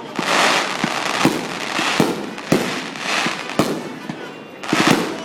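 Fireworks going off: a string of sharp bangs, roughly every half second to a second, with crackling hiss between them and a denser cluster of bangs near the end.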